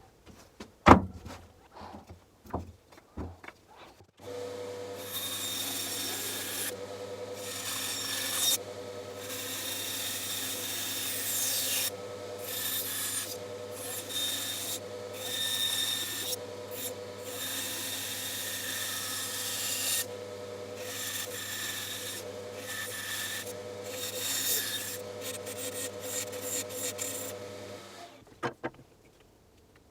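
A few knocks, then a bandsaw starts about four seconds in and runs steadily, its blade cutting wood in stretches of hiss that come and go as the workpiece is fed and turned. The saw stops near the end.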